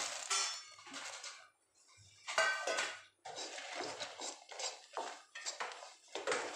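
A spoon scraping and knocking against a pan as peanuts are stirred into thick hot jaggery syrup, in repeated strokes that settle to about two a second in the second half.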